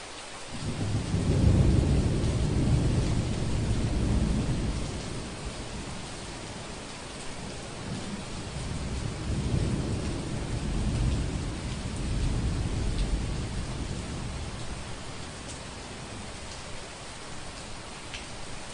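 Thunder rolling over steady heavy rain. The deep rumble surges in about half a second in and is loudest over the first few seconds. It swells again near the middle, then fades back to the rain's hiss.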